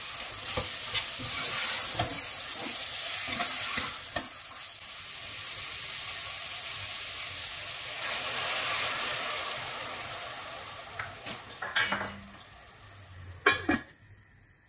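Vegetables sizzling in a hot stainless steel pot as a metal spoon stirs them, with scrapes and taps against the pot. The hiss swells about eight seconds in as water is poured in, then the lid clinks onto the pot twice near the end and the sizzling dies away.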